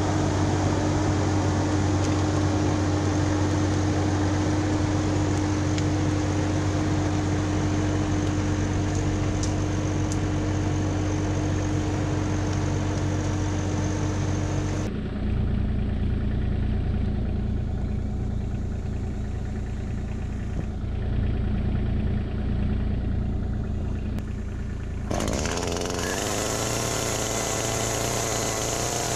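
Bobcat E26 mini excavator's diesel engine running steadily with a constant hum. The sound changes abruptly about halfway, and again near the end to a brighter, hissier sound.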